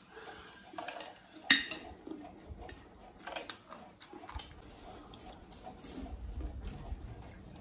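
Metal spoons clinking and scraping against glass plates during eating, with scattered small clicks and mouth sounds of chewing. One sharp clink about a second and a half in is the loudest.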